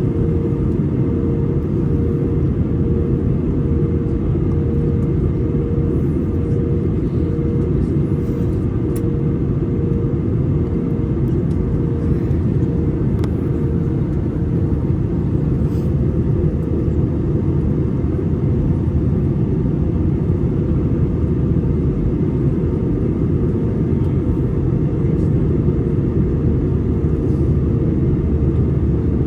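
Steady roar of an Airbus A320's engines and rushing air heard inside the cabin, with a constant hum running through it and a few faint rattles.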